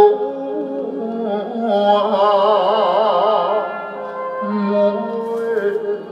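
A vinyl record playing on a vintage Columbia stereo record player through its speakers: a voice singing long held notes with strong vibrato.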